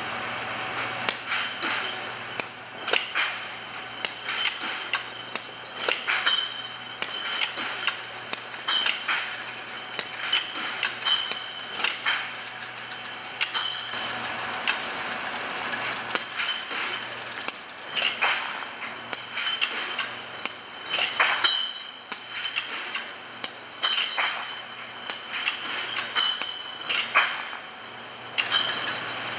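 Brown glass bottles on a robotic case-packing line clinking and clacking against each other and the machinery, an irregular stream of sharp knocks several a second, many with a brief glassy ring. A faint low machine hum runs underneath.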